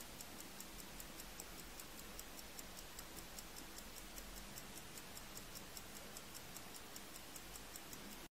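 Mechanical watch movement ticking fast and evenly, about five sharp ticks a second, as the escapement beats.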